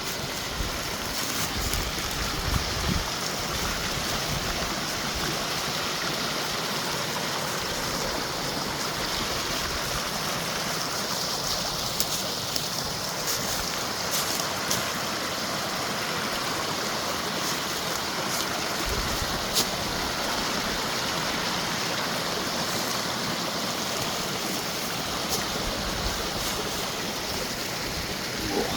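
Small mountain creek running steadily over rocks, with a few brief light clicks scattered through it.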